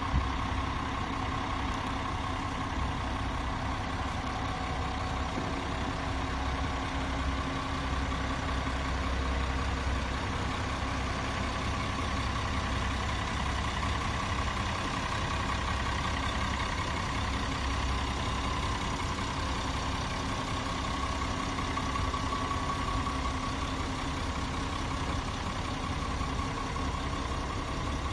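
A diesel engine idling steadily, a continuous low rumble with no change in speed.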